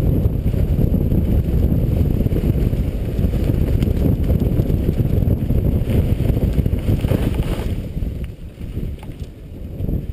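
Mountain bike ridden fast over a leaf-covered dirt trail: heavy wind rumble on the handlebar camera's microphone mixed with the tyres rolling over leaves and the bike rattling. It eases briefly about eight seconds in, then picks up again.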